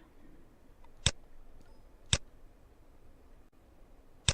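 Three sharp clicks, likely a computer mouse: two about a second apart and a third near the end, over a faint low background hiss.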